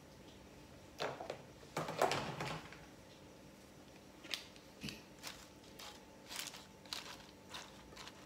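Crisp rustling and crunching of handling, loudest about one to two and a half seconds in, then a string of light clicks and taps from kitchen tongs picking up pieces of chicken.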